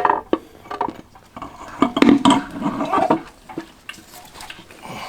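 Metal clunks, knocks and scraping as a fluid-filled torque converter is worked onto a transmission's input shaft, a run of irregular short hits.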